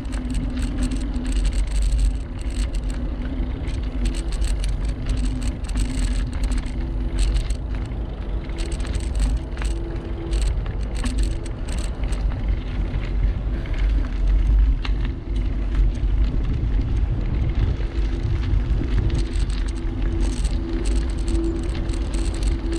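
Bicycle ridden along a canal towpath: a steady rumble of tyres and wind on the microphone, with frequent small rattles and clicks.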